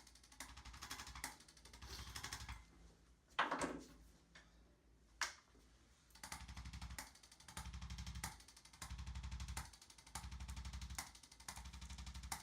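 Handheld chiropractic adjusting instrument firing rapid taps in bursts of about a second with short pauses between, as it is worked over the back to loosen adhesions around the joints. A short squeak falling in pitch about three and a half seconds in.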